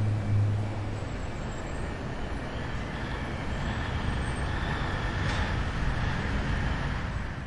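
Steady, unbroken noise of a moving vehicle, like road noise; low music fades out about a second in.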